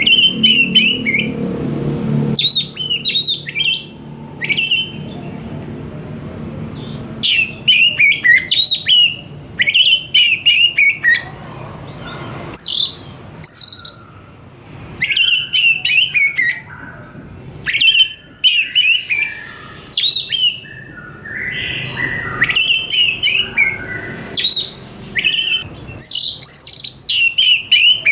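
Oriental magpie-robin (kacer) in full song: loud, varied phrases of whistles and rapid chattering notes, each burst a second or two long, separated by short pauses.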